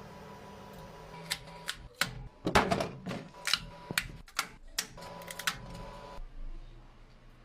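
A 3D printer's motors running with a steady hum that cuts off about six seconds in, with a run of sharp, irregular clicks and clacks in the middle.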